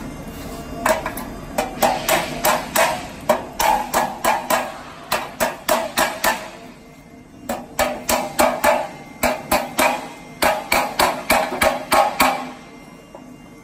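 A hand-held hammer repeatedly striking a roll-formed sheet-steel door frame, about two or three sharp metallic knocks a second, in two runs with a brief pause about seven seconds in.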